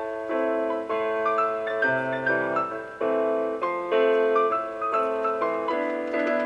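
Piano playing a steady run of chords, a new chord about twice a second, starting abruptly.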